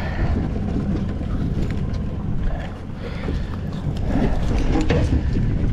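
Small boat's outboard motor running, with wind buffeting the microphone and a few faint knocks.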